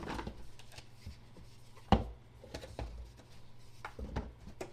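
Keyboard packaging being handled and opened: rubbing and scraping of the box and wrapping, with several light knocks, the sharpest about two seconds in.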